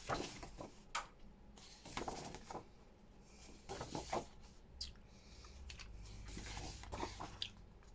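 Loose book pages handled and turned over by hand, paper rustling in a series of short swishes.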